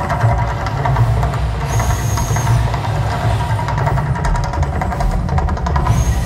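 Volcano show soundtrack from outdoor speakers: a loud, steady low rumble with sustained musical tones over it, part of the staged eruption effect.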